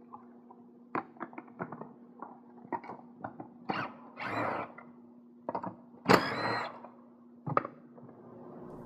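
Hands working a car's plastic interior trim and clips loose: a series of sharp clicks and knocks, with a longer scraping rustle about four seconds in and the loudest scrape about six seconds in.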